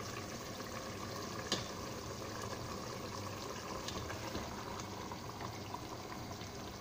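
Spiced gravy boiling steadily in a pot as marinated meat is added, with a single sharp click about one and a half seconds in.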